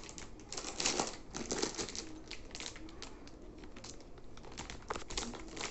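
Light rustling and crinkling of plastic wrapping, with scattered small clicks.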